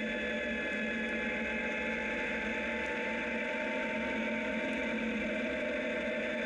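Zero DSR electric motorcycle cruising at a steady speed on gravel: an even, unchanging whine from the electric drivetrain over the hiss and crunch of the tyres on the gravel road.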